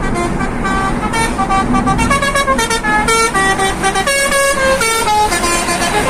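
A lorry's musical telolet (basuri) air horn playing a quick tune, stepping from note to note every fraction of a second, over a low vehicle rumble.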